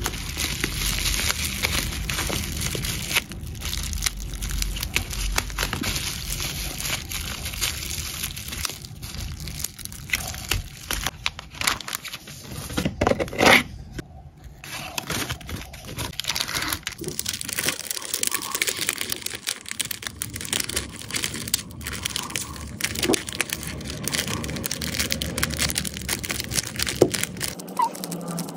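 Bubble wrap and clear plastic bags crinkling and rustling under handling hands, a dense run of small crackles that is loudest about halfway through.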